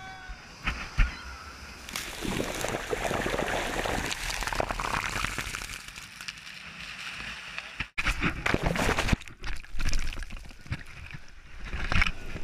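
Ocean surf washing up the beach and sloshing over the sand, swelling about two seconds in. It breaks off abruptly near eight seconds and comes back as uneven rushes of water noise.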